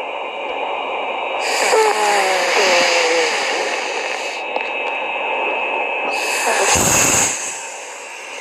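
Snoring: two slow, noisy breaths a few seconds apart. The first has a falling whistle-like wheeze, and the second ends in a short deep snort.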